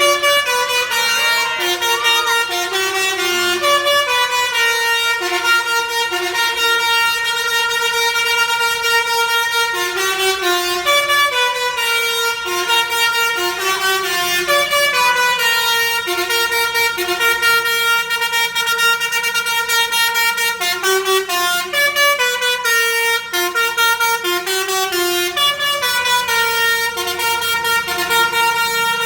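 Bus 'telolet basuri' musical air horn playing a tune: held notes stepping up and down in pitch, several horn tones sounding together.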